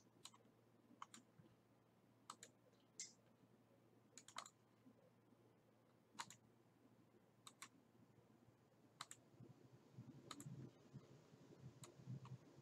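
Faint computer mouse clicks, about a dozen at irregular intervals and some in quick pairs, over quiet room tone.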